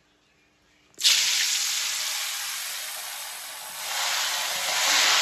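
Food deep-frying in hot oil in an iron kadhai, a loud, even sizzle that starts suddenly about a second in, dips a little, then swells again near the end.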